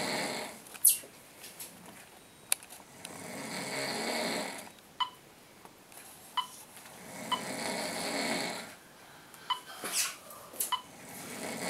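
A man snoring in deep sleep: long snores recurring about every four seconds, with a few short chirps and clicks in the pauses between them.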